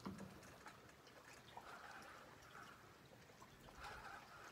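Near silence: faint outdoor background with a few soft clicks.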